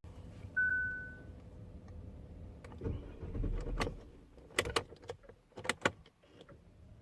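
Inside a car that will not start: one short electronic chime, then a brief low rumble and a run of sharp clicks as the start is tried.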